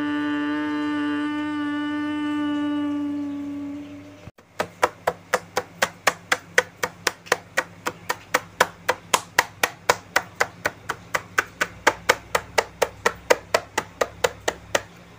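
A held droning tone with several overtones fades out about four seconds in. Steady sharp clicks follow, about four a second.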